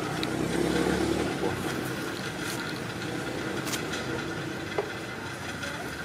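A motor engine running steadily in the background, its low hum dropping away about a second and a half in, leaving a steady outdoor hiss with a few faint clicks.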